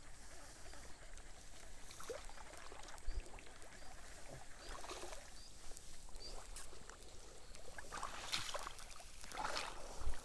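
Faint water sloshing with scattered light clicks, then louder splashing over the last two seconds, from a hooked snakehead being drawn in at the water's surface.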